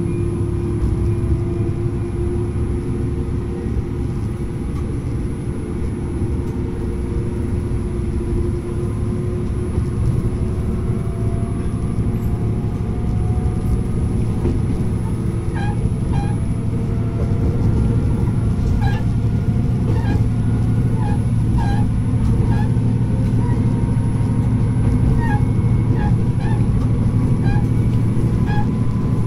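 Diesel railcar running along the line, its engine note slowly climbing as it picks up speed, with light clicks in the second half.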